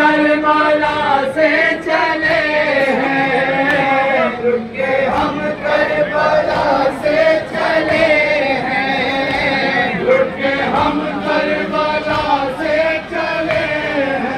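A group of men chanting an Urdu noha, a Shia lament, together in a steady sung melody.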